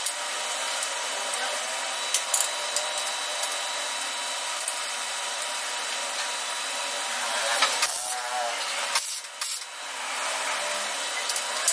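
A power tool running steadily while working material, with a faint steady whine over the noise. It drops away briefly about nine seconds in, then starts again.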